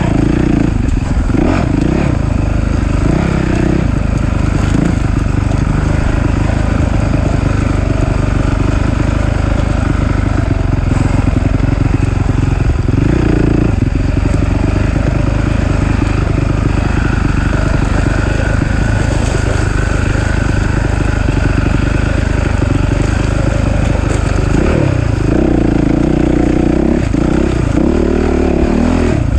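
Off-road dirt bike engine running hard, its pitch rising and falling as the throttle is opened and closed, with revs climbing several times.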